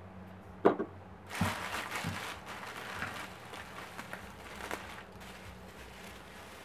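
A single sharp knock, then about four seconds of bubble wrap and packing paper crinkling and rustling as a wrapped item is pulled out of a cardboard box.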